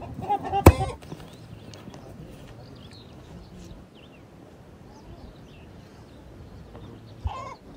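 Farmyard animal sounds: pitched calls at the start and one sharp, loud knock under a second in, then faint bird chirps over low outdoor background, and a short call with a thump near the end.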